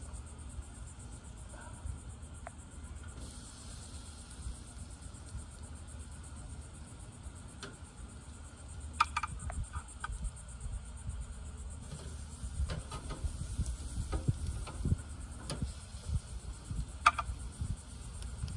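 Steady high-pitched chorus of crickets, with a few short clicks about nine and seventeen seconds in from metal tongs setting chicken wings on a charcoal grill's wire grate.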